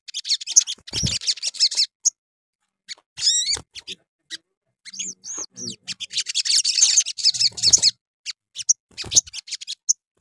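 A caged sogon (sunbird) in full song: rapid, high-pitched chirps and twittering phrases in bursts, with the longest and densest run in the second half and a few scattered chirps near the end. A few low thumps sound under the song.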